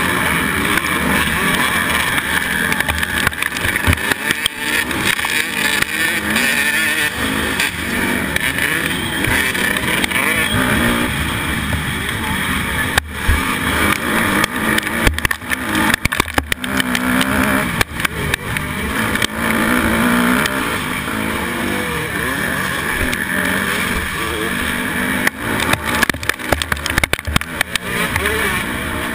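Honda 250R motocross bike's engine revving hard and rising and falling in pitch, heard from the onboard camera, with wind buffeting the microphone and other dirt bikes racing close by.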